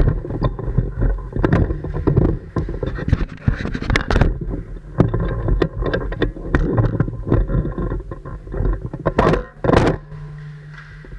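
Airsoft guns firing irregular single shots, with the rustle and knock of gear handled close to the microphone. The two loudest cracks come about half a second apart near the end.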